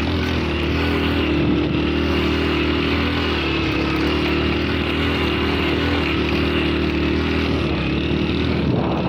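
Motorcycle engine running at a steady pitch while the bike is ridden across sandy ground, heard from on the bike.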